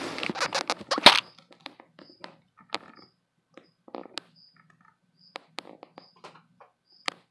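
Handling noise from the phone or contact with the enclosure: a dense flurry of sharp clicks and knocks for about the first second, then scattered fainter clicks.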